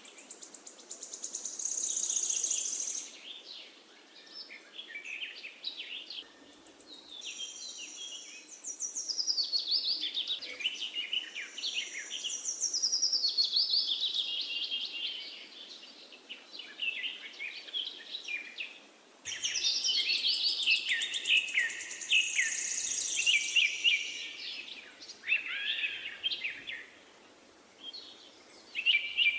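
Finch song: rapid twittering and trilled phrases, several seconds at a time with short pauses between.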